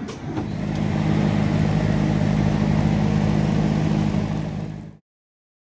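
SSR 125cc dirt bike's single-cylinder engine running with its new carburetor fitted. It builds up over the first second, runs steadily at a raised speed, then cuts off suddenly.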